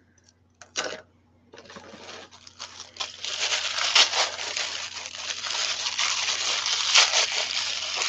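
Tissue paper crinkling and rustling as it is unwrapped by hand, starting faintly about a second and a half in and growing louder, after one short click just before.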